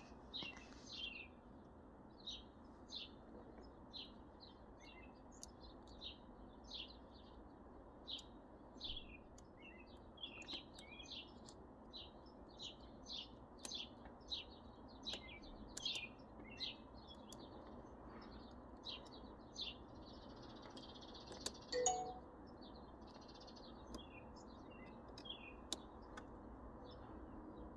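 Faint chirping of small birds, short high calls repeating every second or so, over a steady low hiss. About two thirds of the way through comes a single light metallic clink.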